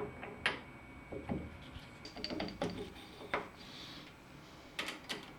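Metal tool holders being handled and swapped between the lathe's tool pockets: a string of irregular sharp clicks and knocks, about eight in all.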